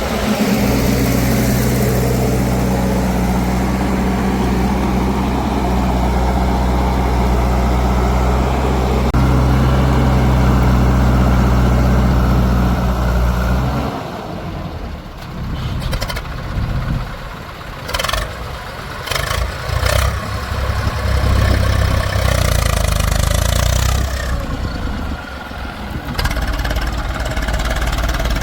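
Heavy-machinery diesel engine running steadily, then about halfway through the sound changes abruptly to an engine that rises and falls, with a few sharp knocks.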